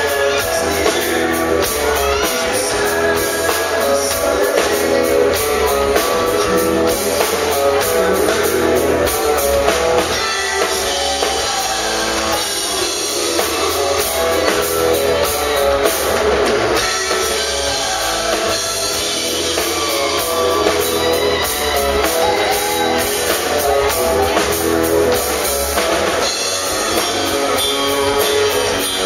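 Live rock band playing loud, amplified music: electric bass, guitar and a drum kit keeping a steady beat.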